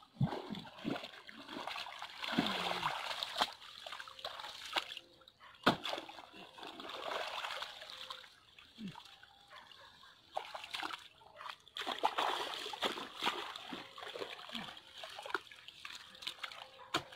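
Irrigation water splashing and sloshing as a spade works wet mud, opening the earth bank to let water into the next wheat plot, with an irregular run of splashes and a few sharp knocks.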